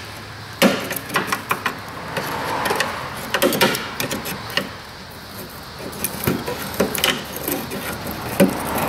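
Irregular metallic clicks and scrapes of a steel pick prying at a corroded brake-hose retaining clip on its bracket, working the stuck clip loose.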